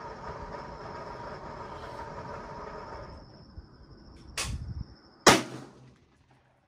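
A 20-inch AR-15 rifle fires a single shot of 55-grain ammunition, a loud sharp crack about five seconds in. A quieter bang comes just under a second before it. A steady low hum fades out over the first few seconds.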